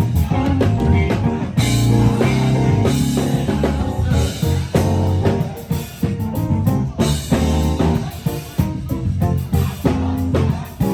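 Live band playing instrumental music at a sound check: drum kit with guitar and other pitched instruments, running without a break.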